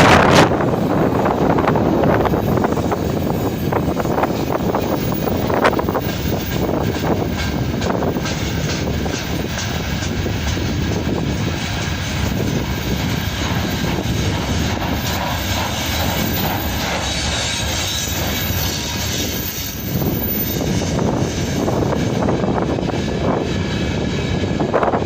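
Freight train rolling past: a steady roar of wagon wheels on the rails, with faint clicks throughout and wind buffeting the microphone.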